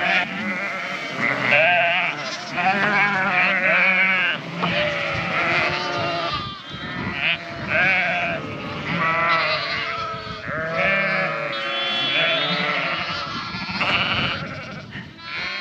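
A flock of Dorset ewes and lambs bleating together, many calls overlapping without a pause. Ewes and lambs are calling back and forth, each lamb with its own voice so that mother and lamb can find each other.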